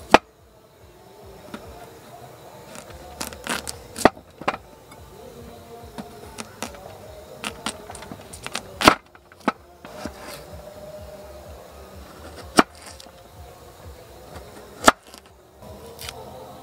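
A kitchen knife slicing a potato on a wooden cutting board: irregular sharp knocks as the blade strikes the board, with long gaps between them and the loudest about nine seconds in.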